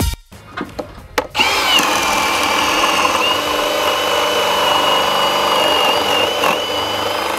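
A power drill running under load, boring into wooden framing. After a few light clicks, a steady whine starts about a second and a half in and holds, with a couple of brief dips.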